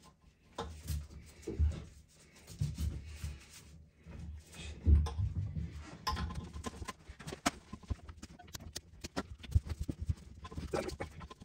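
Hands connecting a water supply line under a toilet tank, threading the coupling nut onto the fill valve's shank: irregular knocks and rubbing, then a quicker run of sharp clicks in the second half.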